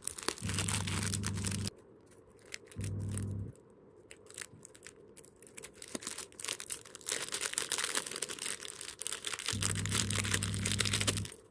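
A thin plastic-and-foil packet crinkling and tearing as it is opened by hand. A low steady hum cuts in and out three times.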